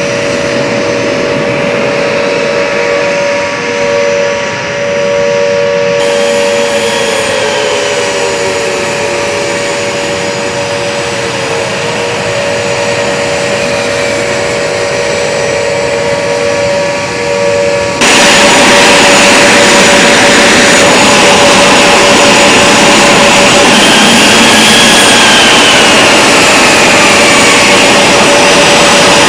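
A-10 Warthog's twin turbofan jet engines running with a steady high whine, with tones that glide down and back up in pitch as the aircraft moves. About two-thirds through, the sound abruptly becomes louder and rougher.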